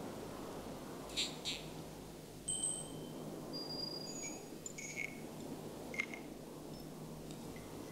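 Sparse, faint chime tones: short high pings at several different pitches, scattered one after another over a steady low hiss, with a couple of brief tinkling clicks about a second in.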